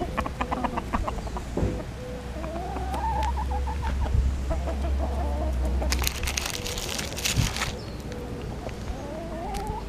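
A flock of chickens clucking and calling, with wavering, drawn-out calls from several birds. A patter of clicks comes in the first second, and a brief burst of rustling noise about six seconds in.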